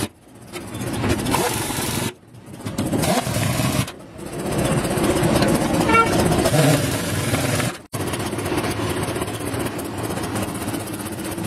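Heavy pneumatic impact wrench hammering on truck wheel nuts, in several short runs that build in loudness, followed by a steadier mechanical running noise near the end.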